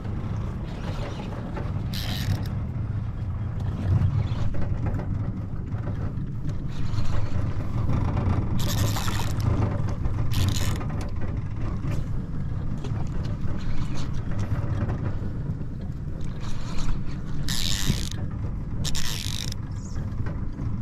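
Fishing reel being cranked against a peacock bass fighting deep on the line, its gears ratcheting steadily. Several brief hissing rushes come in between.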